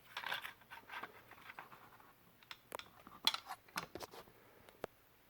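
Faint scattered clicks and light rubbing of a plastic razor handle and blade cartridge being handled and fitted together, with a few sharper clicks near the middle.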